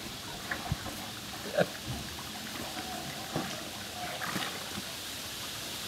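Water trickling and lightly splashing, with a few scattered soft knocks over a steady hiss.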